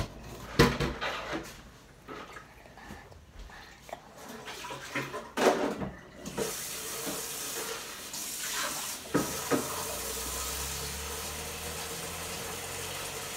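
Wet, sticky slime being squeezed and pulled by hand in a steel bowl, giving scattered soft squelches and clicks. About halfway through, a steady hiss of running water starts and keeps going.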